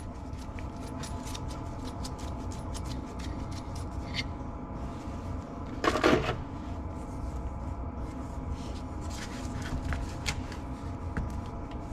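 Small clicks and light knocks of a Garrett T04E turbocharger's center section and compressor wheel being handled on a workbench, with a short louder rustle about six seconds in, over a steady shop hum.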